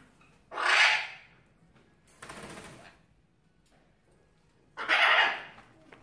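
Conures giving two loud, harsh screeches, one about a second in and one near the end, with a quieter, hissier sound between them.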